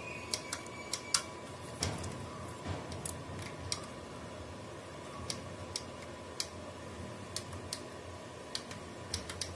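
Irregular sharp clicks, a few at a time, from fingers pressing the small menu buttons on an LED par light's rear control panel while its DMX address is set. A faint steady tone runs underneath.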